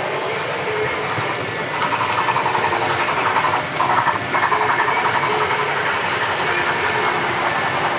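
Model train running on a layout track: a steady mechanical rattle with rapid clicking of wheels over the rails. It grows louder about two seconds in and eases off again a few seconds later.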